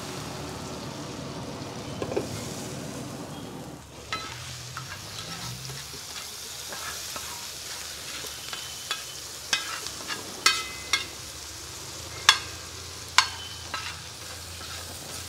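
Onions frying in butter in a hot pan, with a steady sizzle. From about four seconds in, a metal spatula stirs and scrapes the pan with sharp clinks, the loudest of them with a short metallic ring.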